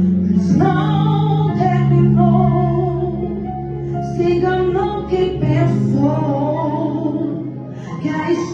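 Worship song with a woman singing a melody over instrumental accompaniment, its held bass notes changing every second or two.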